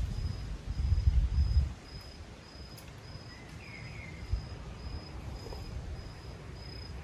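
An insect chirping in an even, high-pitched pulse about twice a second. A short bird chirp comes about three and a half seconds in, and a low rumble fills the first couple of seconds.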